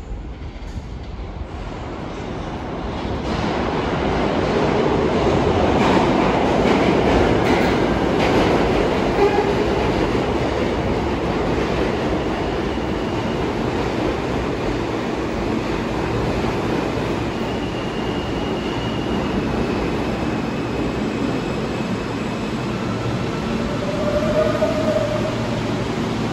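New York City subway train running through an underground station. It grows louder over the first few seconds, then holds steady, with a few brief thin squeals later on.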